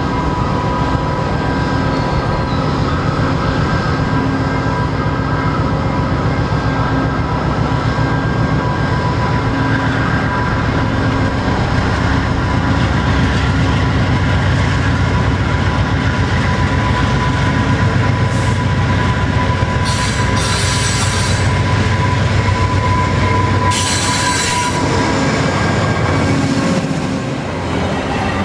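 A VIA Rail GE P42DC diesel locomotive and its coaches roll slowly past a station platform: a steady engine rumble with a thin whine, and wheels on the rails. A short high hiss or squeal comes twice, about two-thirds of the way in and again a few seconds later.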